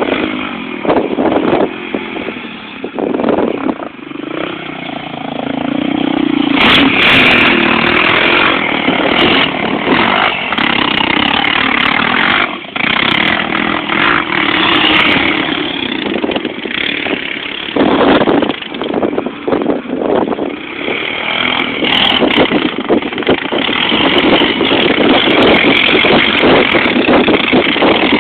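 ATV (quad bike) engines revving on a sand dune, the engine noise rising and falling as riders work the throttle, with one quad close by near the end.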